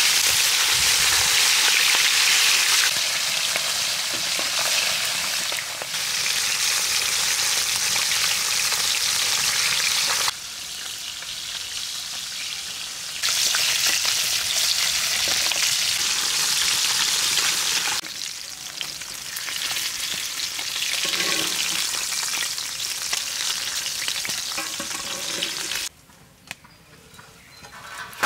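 Whole small bata fish deep-frying in hot oil in a wide iron pan, a loud steady sizzle with spatulas stirring and turning the fish. The sizzle changes level several times and falls away sharply near the end.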